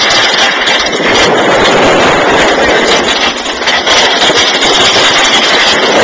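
Engine of a moving vehicle running, heard as a loud, steady rush of noise.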